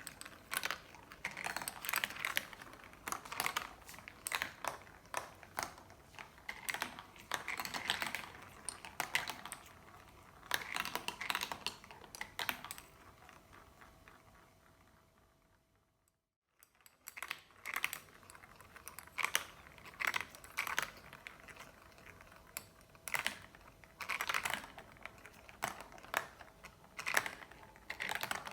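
Marbles rolling and clicking along a marble-run track, with clusters of sharp clacks as they hit track pieces and each other. The clicking dies away to silence about halfway through, then starts again.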